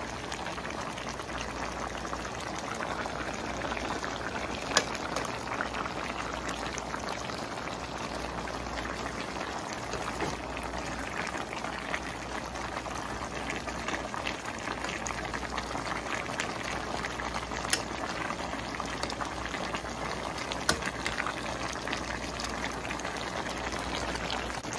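Fish and root vegetables in broth simmering in a wide metal pan, a steady bubbling with a few sharp clicks.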